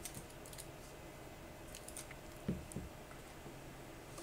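Faint scratching and rustling of a keyboard's retail box being handled, with two soft thumps a little past halfway through.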